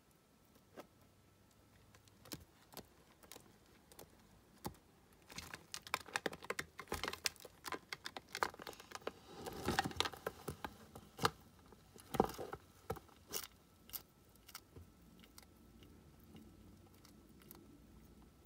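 Irregular small clicks and scratchy crunching from a baby tegu scrabbling on a clear plastic tub and biting crickets, sparse at first and then a dense flurry through the middle, thickest about ten seconds in.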